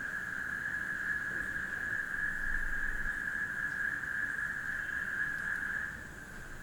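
Night chorus of crickets: a steady, unbroken high-pitched trill that eases a little about six seconds in.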